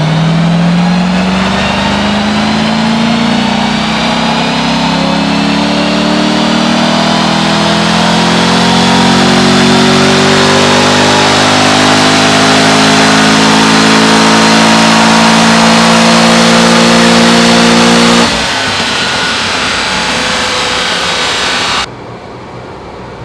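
C6 Corvette Z06's 7.0-litre LS7 V8, breathing through a newly fitted Ram Air SS intake, pulling under load with its revs rising slowly and evenly for about 18 seconds. The revs then cut off abruptly, the engine runs on more quietly, and it drops away further near the end. This is a tuning pull after the intake install.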